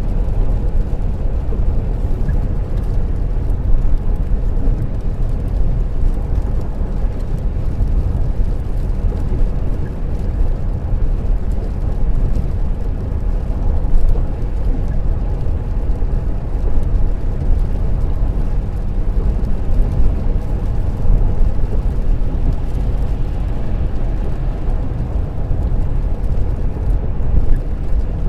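Inside a car cruising on a wet dual carriageway: a steady low rumble of tyres on the wet road surface and the engine.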